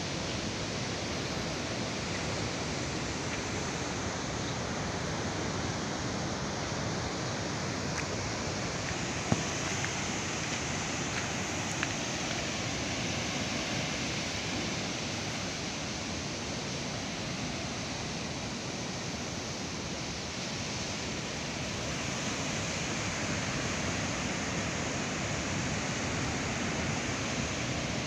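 Steady wash of ocean surf breaking, mixed with wind, with a sharp click about nine seconds in.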